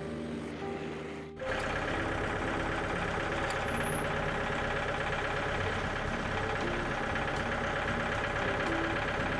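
Background music, then about a second in an abrupt cut to a steady-running gas engine of a portable band sawmill, with the music still faintly under it.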